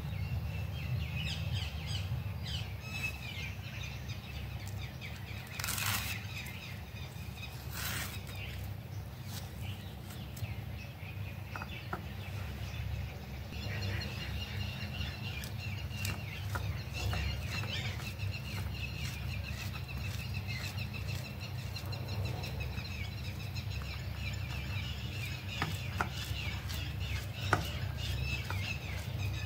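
Birds chirping in the background, busier in the second half, over a steady low hum. A few sharp clicks and taps come from hands and a knife working in a steel bowl.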